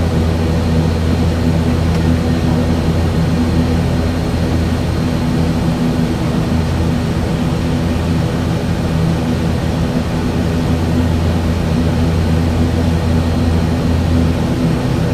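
ATR turboprop's Pratt & Whitney PW127 engines and propellers running steadily, heard inside the cockpit: a constant loud low propeller drone with a stack of steady hum tones over a rushing noise.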